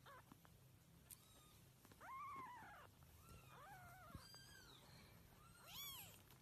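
Very young kitten mewing: about five thin, high squeaks, each rising and then falling in pitch, the loudest about two seconds in.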